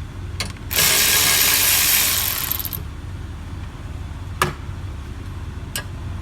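Socket ratchet wrench clicking rapidly for about two seconds as it spins a 12 mm bolt on a rear brake caliper, with a few single metallic clicks before and after.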